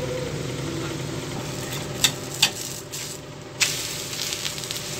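Wheat-flour and rava dosa sizzling in oil on a hot tawa. A steel spatula scrapes and clicks against the pan a few times, about two seconds in and again shortly after, as it is worked under the dosa.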